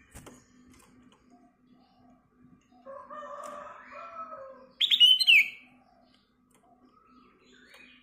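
Kutilang emas (black-crested bulbul) calling. A short warbled phrase comes about three seconds in, then a loud, sharp burst of high, rising notes near five seconds, with a few softer notes near the end.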